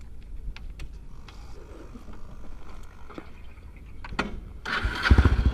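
Kawasaki Estrella's single-cylinder four-stroke engine idling quietly, with a short click about four seconds in. About five seconds in, the exhaust beat grows much louder into a fast, even run of pulses as the bike sets off.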